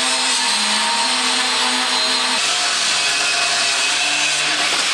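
Handheld angle grinder grinding metal: a loud, steady motor whine over a harsh grinding hiss.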